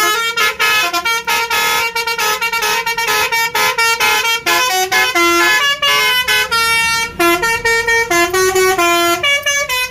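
Bus 'telolet' horn, a Basuri multi-tone horn, playing a fast tune of short notes that jump between several pitches, several notes a second, loud.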